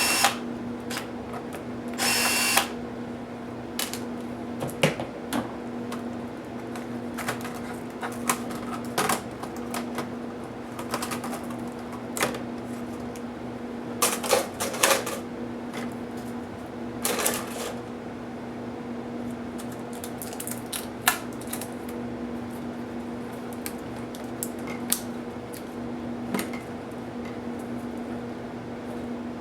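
Scattered clicks and taps of small screws and plastic parts being handled while a laptop is taken apart, with a few short louder noisy bursts about 2, 14 and 17 seconds in, over a steady low hum.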